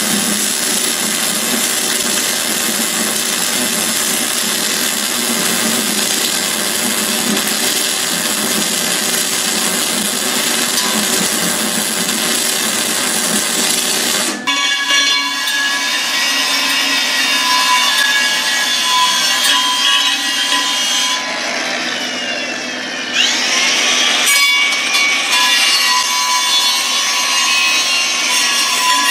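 Wire-feed (MIG) welding along the seam of a cut-and-narrowed steel wheel rim, a steady crackling hiss as the rim is turned on its jig. The sound changes abruptly about halfway through.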